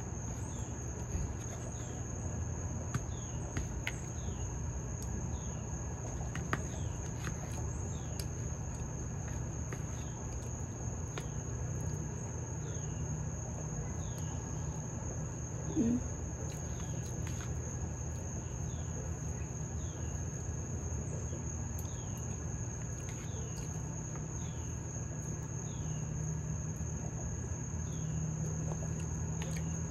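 A steady, high-pitched insect chorus, with short chirps repeating about once a second over it and a low steady hum beneath. A few light clicks of a metal fork against a plastic food container.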